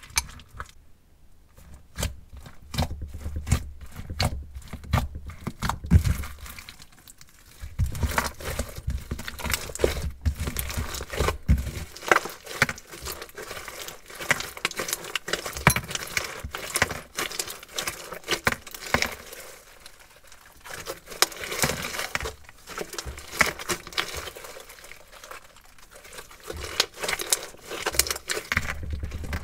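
Crunchy slime being stirred with a spoon in a glass bowl and then squeezed and kneaded by hand, making dense, irregular crackling clicks throughout. There are soft low thumps mixed in during roughly the first twelve seconds.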